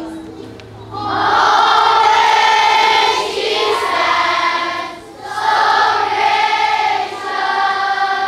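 A group of children singing together in long held notes: two sung lines, with a short breath between them about five seconds in.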